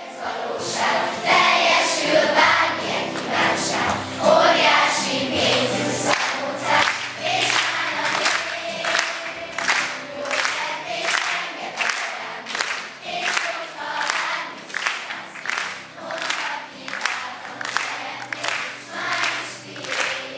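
Children's choir singing together on stage, with a steady sharp beat about twice a second joining in after about six seconds.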